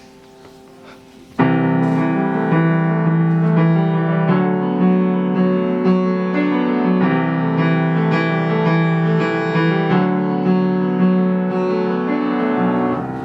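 Keyboard playing the instrumental introduction of a song in sustained chords with a low melody. It starts suddenly about a second and a half in and fades near the end.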